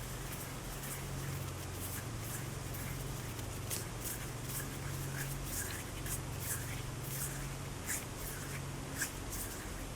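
Hands rubbing and brushing together close to the microphone: a string of soft, irregular swishes and light taps over a steady low hum.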